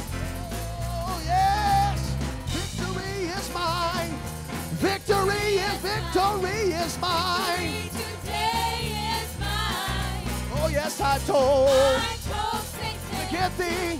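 Live gospel worship music: a church band with keyboard, bass and drums plays while worship singers sing and vocalize over it in long, wavering lines.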